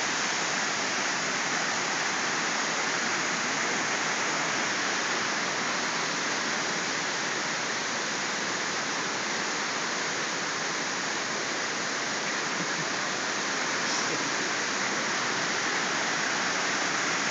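Waterfall's falling water: a steady, even rush with no breaks or changes.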